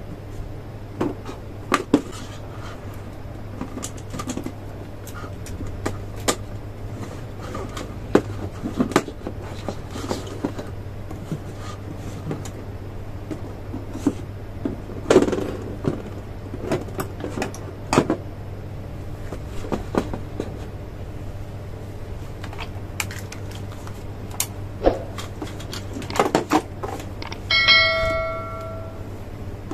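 Scattered light clicks and knocks of electrical wires and plastic parts being handled on a tabletop, over a steady low hum. Near the end comes a short bell-like chime, the sound effect of a pop-up subscribe-button animation.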